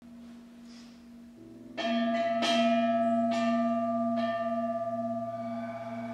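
Bell tones struck four times in a slow, uneven sequence, each left ringing with shimmering overtones over a low steady drone that comes in about a second in.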